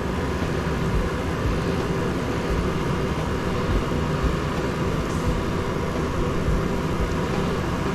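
Steady background noise at an even level, with no knocks or other distinct events.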